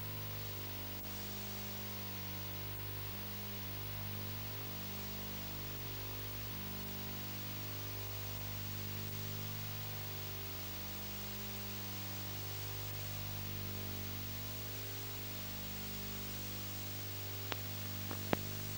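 Steady tape hiss with a low electrical hum from an old VHS video transfer, with two faint clicks near the end.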